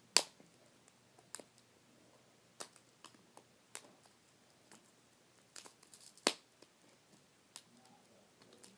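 Plastic toy packaging being worked at and torn open by hand: scattered sharp clicks and short crinkles, the loudest just after the start and about six seconds in. The package is hard to open.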